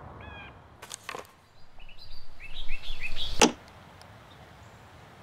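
Short bird-like chirps in a few quick runs, cut into by sharp glitch clicks. The loudest click, about three and a half seconds in, cuts the sound off and leaves a faint low hiss.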